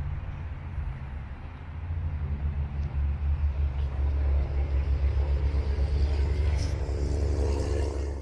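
Outdoor downtown city ambience dominated by a heavy, unsteady low rumble, which grows louder about two seconds in and cuts off abruptly at the very end.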